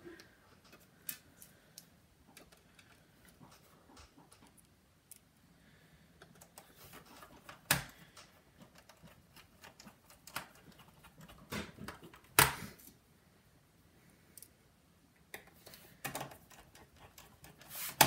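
Hands rubbing and pressing on the plastic underside of a Dell Latitude E6430 laptop as the bottom cover is fitted, with a few sharp plastic clicks; the loudest come about 8 and 12 seconds in.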